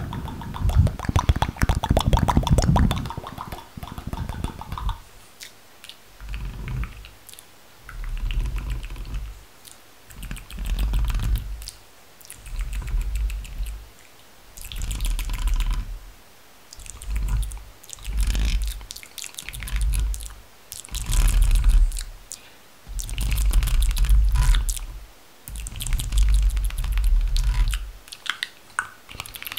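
Close-miked ASMR water sounds: dense crackling clicks for the first few seconds, then liquid swishing in repeated swells, about one every one to two seconds.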